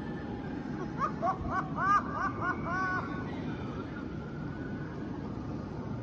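High-pitched cackling laugh: six or seven short rising-and-falling notes in quick succession between about one and three seconds in, over a steady low hum.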